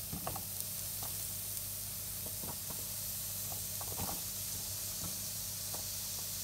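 Chopped onion sizzling as it is scraped off a plate into hot avocado oil in a frying pan, with scattered light taps as pieces drop in. A steady low hum runs underneath.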